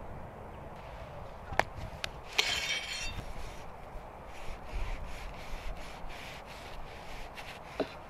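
A large kitchen knife blade scraping the burnt, blackened crust off a toasted burger bun in repeated scraping strokes, after a couple of sharp clicks and a brief louder scrape.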